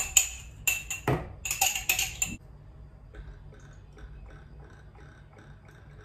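Spoon or whisk clinking rapidly against a mixing bowl while batter is stirred. The clinks stop about two seconds in, and softer, quieter stirring taps follow.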